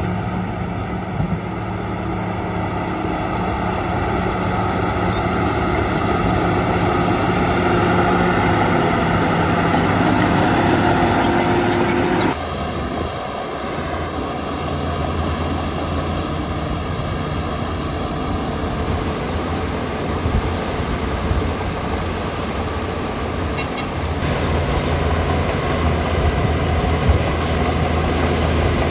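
Shantui DH17 bulldozer's diesel engine running steadily, its sound changing abruptly about twelve seconds in.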